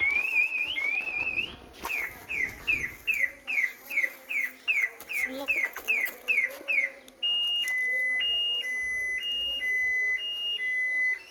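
Maruti Suzuki Swift's anti-theft alarm siren going off after the car is opened, cycling through its patterns: a warbling wail, then from about two seconds in rapid falling chirps about two and a half a second, then from about seven seconds in a steady high-low two-tone alternation.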